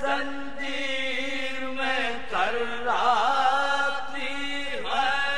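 A man's voice chanting an Urdu marsiya in soz style: long, drawn-out sung notes that waver and slide in pitch, with a couple of short breaks between phrases.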